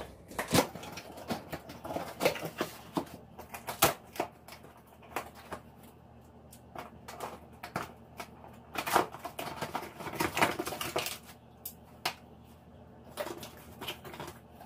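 A cardboard shipping box being opened by hand: irregular knocks, clicks and short scraping rustles of cardboard as the flaps and packing are worked loose.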